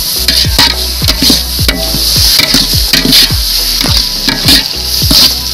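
A perforated metal ladle scrapes and knocks against a large metal pot, about two or three strokes a second. Underneath is a steady sizzle of onions and tomatoes frying in oil.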